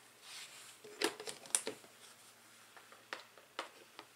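Hands settling a ball python on a hard tabletop: a brief soft rustle, then a quick cluster of light clicks and taps about a second in, and a few single taps near the end.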